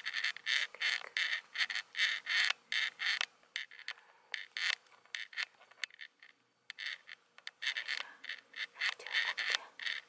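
A cat's claws scratching the corrugated cardboard of a bowl-shaped scratcher: quick runs of short rasping strokes, with a pause of about a second a little past the middle before they start again.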